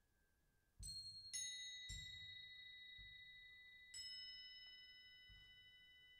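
Bell-like metal percussion struck four times with mallets in a solo percussion piece, the first three strokes close together and the fourth a couple of seconds later. Each note rings on and overlaps the next, over soft low thuds now and then.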